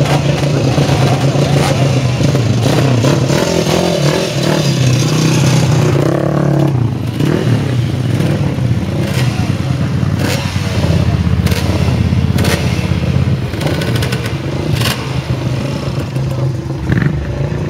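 Several classic racing motorcycle engines running together, idling and blipped now and then, with a number of sharp cracks over them.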